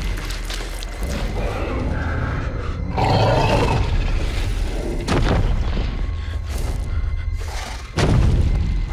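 Cinematic sound effects: several sudden deep booms over a continuous low rumble, coming about a second in, at three seconds, around five seconds and near the end, with music underneath.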